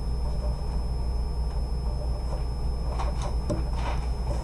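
Steady low room rumble, with a few short scratchy strokes of a pen writing on paper about three seconds in.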